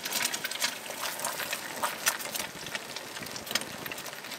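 An egg frying in a pan over a wood fire: a steady sizzle with frequent small pops and crackles.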